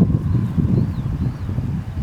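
Wind buffeting the microphone outdoors by the sea and reeds: a low, uneven rumble that rises and falls in gusts.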